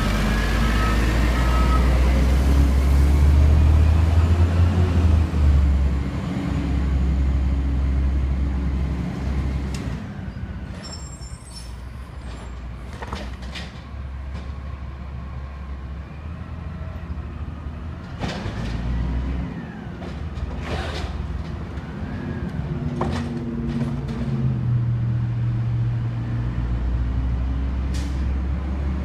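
Automated side-loader garbage truck's diesel engine running and pulling away, loud at first and fading after about ten seconds; its reversing beeper stops about a second in. Later, sharp clanks and short hisses come from the truck working farther down the street, and its engine rises again near the end.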